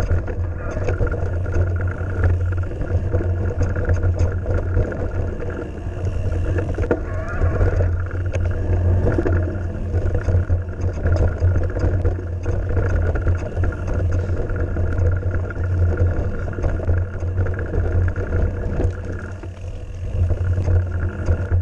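Mountain bike ridden fast down a dirt trail: a steady low rumble of wind buffeting the camera microphone, with frequent small clicks and rattles from the bike as it goes over bumps.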